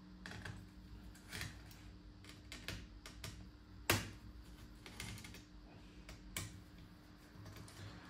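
Scattered light clicks and taps of hands working on a laptop, with a sharper knock about four seconds in.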